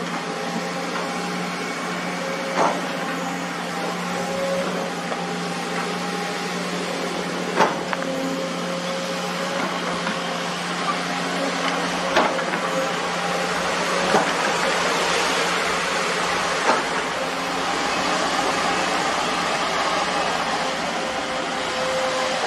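Hydraulic excavators' diesel engines running with a steady drone. Five sharp knocks are spread through it, a few seconds apart.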